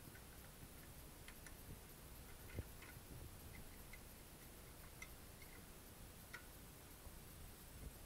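Faint, scattered clicks and taps of a screwdriver working at a metal mortise lock in a door edge, with a soft knock about two and a half seconds in.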